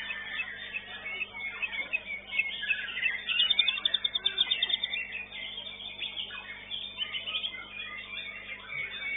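White-rumped shamas singing in competition: a dense, overlapping tangle of whistles and chattering phrases, with a fast high trill about three and a half seconds in.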